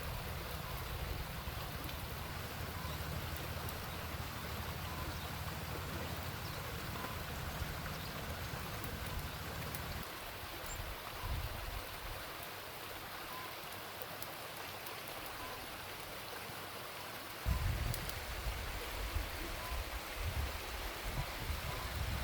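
Water running in a stream: a steady rushing hiss. A low rumble sits under it through the first half and returns in bursts near the end.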